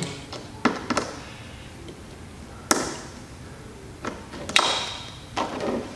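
A few short, sharp clicks and taps of a screwdriver against an Andis T-Outliner trimmer as it is handled and a screw in its housing is worked on, the sharpest one near the middle.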